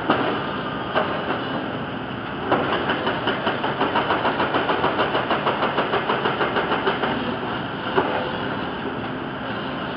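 Hydraulic excavator's diesel engine running steadily, with a fast rhythmic clanking, about four to five strokes a second, that starts about two and a half seconds in and stops about seven seconds in, and a few single knocks.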